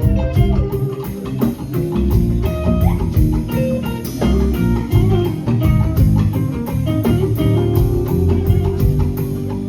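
Instrumental music without singing: guitar lines over bass and drum kit, with a steady beat.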